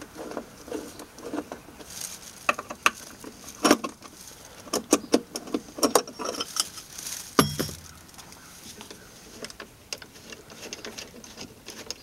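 Scattered clicks, taps and light rattles as the parts of a homemade plywood pulley-and-motor door mechanism are taken apart by hand, with one heavier knock about seven and a half seconds in.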